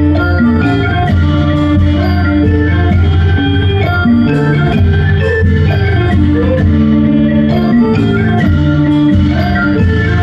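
Background music with a steady beat and a melody of short, distinct notes.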